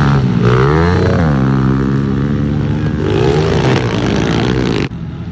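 Pit bikes, small dirt bikes, revving as they ride past one after another, the engine pitch rising and falling as riders work the throttle. The sound drops off abruptly near the end.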